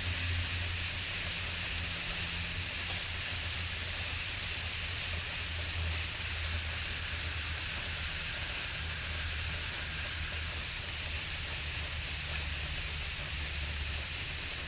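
Dense chorus of insects and frogs in Southeast Texas woodland: a steady, shrill, unbroken insect drone, a steady low hum underneath, and faint high chirps every second or two.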